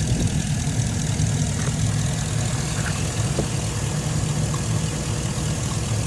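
Vehicle engine idling steadily with a deep, even rumble.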